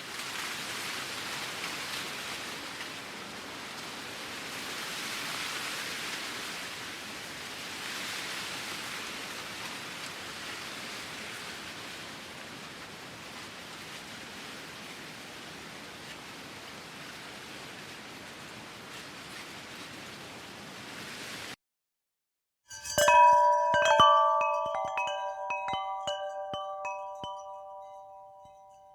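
Wind blowing in a steady rush that swells and eases, cutting off abruptly after about twenty seconds. After a short silence, wind chimes are struck several times, ringing with several clear tones that fade out near the end.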